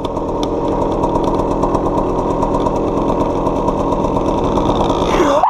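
Two-stroke KTM dirt bike engine running at a steady pitch, held at an even speed while riding.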